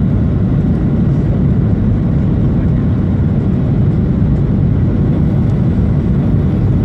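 Jet airliner cabin noise during the landing approach: a steady low rumble from the engines and the airframe.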